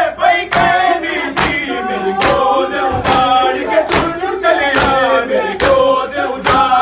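A group of men chanting a noha in unison while beating their chests with open hands in matam, a sharp slap a little more often than once a second.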